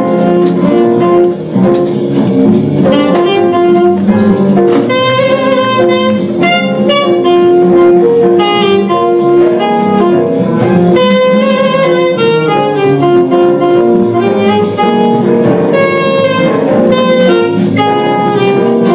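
Saxophone playing a melody that moves between held notes and quicker runs.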